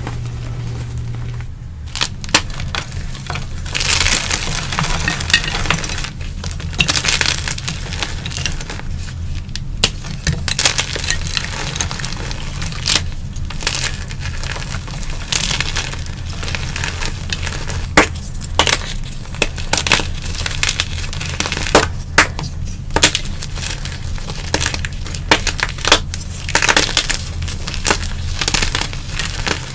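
Hands crushing and crumbling blocks of dyed gym chalk: a dense run of dry crunches and crackles, with sharper snaps from about two seconds in.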